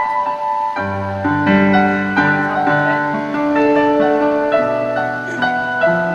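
Keyboard playing a slow instrumental passage of held chords, with low bass notes coming in about a second in.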